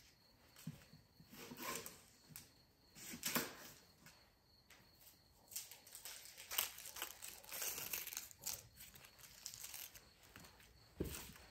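Dry, papery onion skins crackling and tearing as they are peeled off small onions with a kitchen knife, in irregular short rustles. A knock near the end, like a knife or onion set down on the wooden cutting board.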